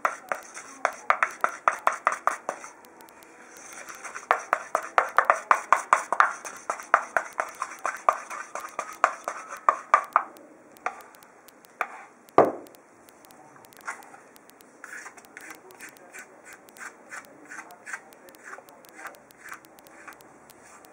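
A wooden spatula stirring a thick hair-mask paste in a bowl, knocking against the bowl's side about four times a second in two runs. In the second half come slower, fainter taps, with one louder scrape falling in pitch about twelve seconds in.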